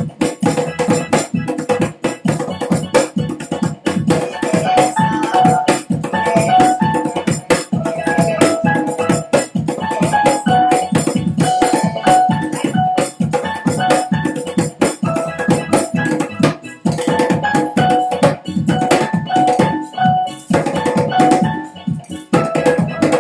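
Music with fast, dense drumming and a bright repeating melody of short notes above it.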